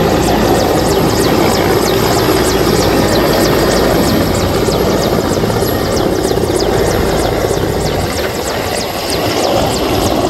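Large rescue helicopter hovering low overhead: loud, steady rotor and turbine noise with the rapid, regular chop of the main rotor blades.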